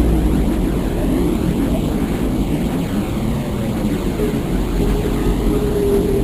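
Deep, steady droning rumble, presented as the sound of Earth recorded from space; a faint steady tone joins it about four seconds in.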